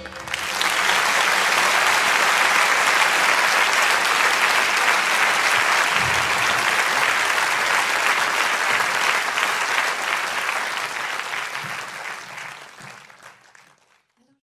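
A crowd applauding: steady clapping for about ten seconds that then fades out.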